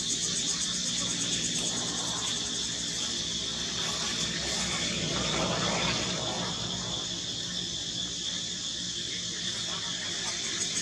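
Steady chorus of insects, a continuous high-pitched buzz that holds level throughout, with a steady low hum underneath.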